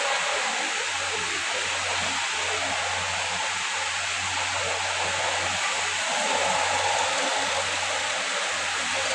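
Steady rushing hiss with a low hum underneath; the hum drops out briefly a few times.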